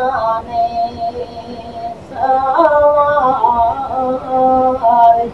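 A man singing a naat solo without instruments, in long held notes that waver and bend in pitch. A new, louder phrase begins about two seconds in.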